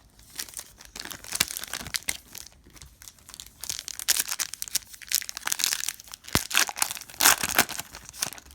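Foil trading-card pack wrapper being torn open and crinkled, with irregular crackling in several bursts, the loudest near the end.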